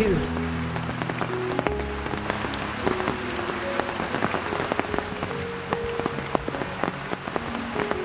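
Steady rain, with many individual drops ticking close by. Soft background music of long held notes plays underneath.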